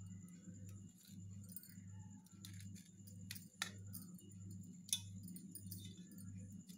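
A knife clicking faintly against a steel plate while cutting a slab of soft candy, with two sharper clicks, about three and a half and five seconds in. Under it runs a low hum that swells and fades about twice a second.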